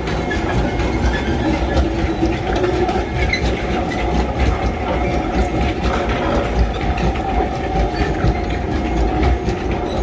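Narrow-gauge (762 mm) sugarcane train rolling steadily past, a long string of cane wagons clattering over the rail joints with a continuous rumble and rapid clicks.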